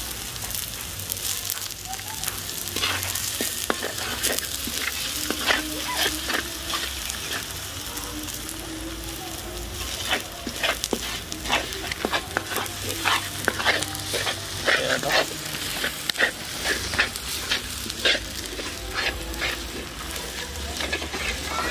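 Chopped garlic sizzling in hot olive oil in a kawali (wok-style pan), with frequent sharp scrapes and taps of a utensil against the pan as it is stirred.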